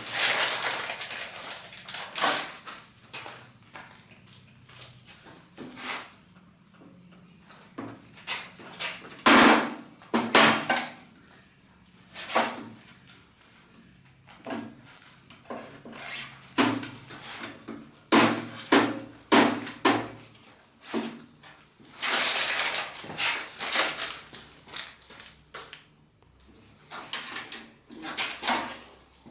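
Irregular clinks, knocks and scrapes of tools and metal and plastic parts being handled, with a longer scraping stretch about 22 seconds in.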